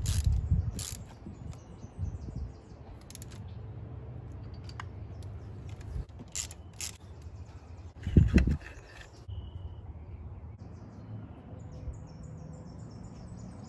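A ratchet on a spark plug socket works spark plugs loose from a car engine: scattered metallic clicks and knocks, runs of quick light ratchet ticks, and one louder thump about eight seconds in.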